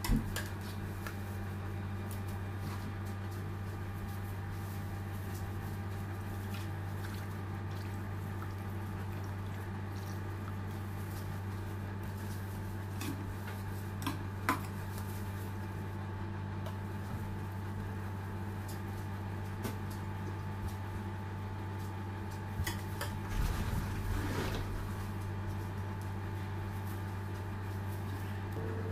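A steady low hum throughout, with a few light clicks and soft knocks from cake layers, cream and a spatula being handled on the cake board, once at the start, once midway and a short cluster near the end.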